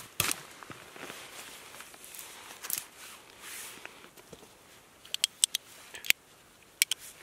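Multi-tool knife blade shaving and splitting a dry wooden sliver into thin strips, a scrape then a quieter run of whittling. About five seconds in comes a quick run of sharp metal clicks, then more clicks near the end, as the multi-tool is worked and folded.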